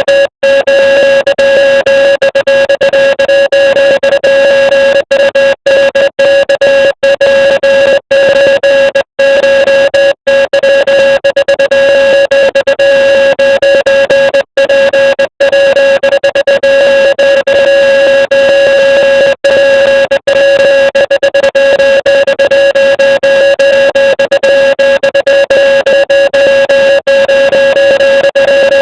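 A loud, steady electronic buzz tone, square-wave-like, with many very short, irregular breaks.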